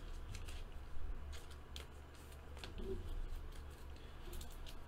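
Faint scattered clicks and light rustles of trading cards and packaging being handled at a table, over a low steady hum.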